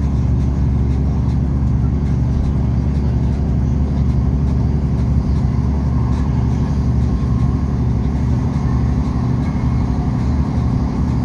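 Passenger train running along the line, heard from inside the carriage as a steady low rumble.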